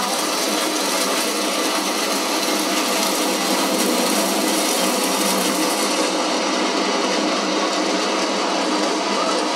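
Noise-based electronic music from a hardware live set: a dense, hissing synthesizer texture with faint steady tones inside it and no bass. The highest hiss drops away about six seconds in, like a filter closing.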